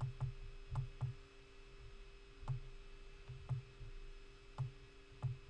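Computer mouse clicking as the map is dragged and panned: about nine short, irregular clicks, each with a soft thud, over a faint steady hum.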